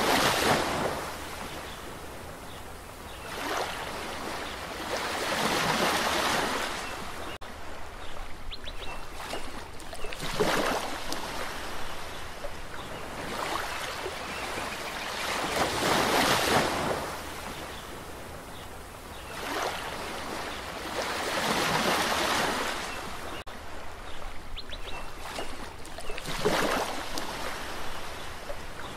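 Sea waves breaking and washing in, each swell surging and then fading, about every five seconds.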